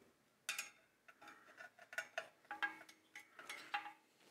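Faint metallic clinks and ticks of small screws being handled and threaded by hand into a metal amplifier chassis's corner brackets. A sharper click comes about half a second in, then a run of lighter ticks, some with a short ring.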